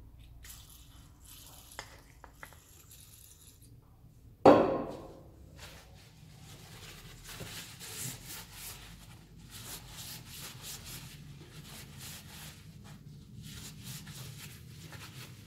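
An old cylinder screw being cleaned by hand, with repeated rubbing strokes. About four and a half seconds in, a single loud metal clank rings out and fades over about a second.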